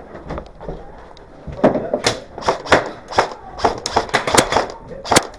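Airsoft gunfire: a quick, irregular series of sharp clacks, about a dozen in three and a half seconds, beginning about a second and a half in.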